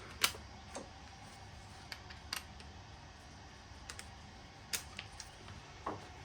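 Scattered light clicks and taps from handling small tools and metal parts, about eight separate clicks with the sharpest right at the start.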